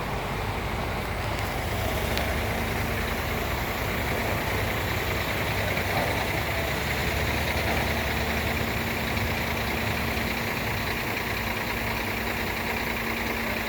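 Heavy diesel engine running steadily at an even speed, with a constant droning hum.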